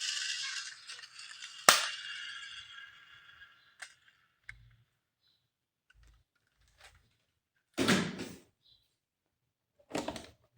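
Plastic toy packaging being handled: a crinkling rustle that fades over the first few seconds, with one sharp click, then scattered small clicks and two short rustles.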